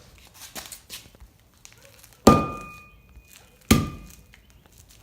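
Heavy blows striking an iPhone 11: two hard thunks about a second and a half apart, each with a short ringing tone, after a few lighter knocks and taps near the start.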